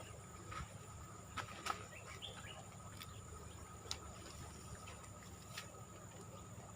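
Faint outdoor ambience: a steady high thin hum with a few short chirps, and a few sharp clicks about a second and a half and four seconds in.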